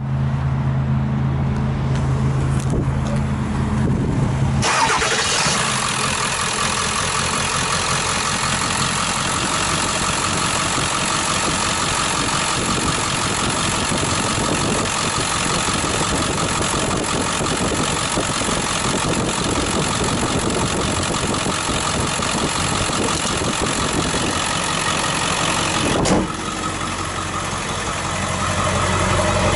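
Ford 7.3L Power Stroke turbo-diesel V8 idling steadily. A low, even note turns into a harsher, noisier diesel clatter about five seconds in and stays that way. Near the end the sound turns deeper and less bright.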